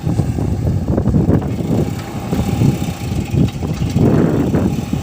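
Heavy diesel engine running steadily with an uneven low rumble.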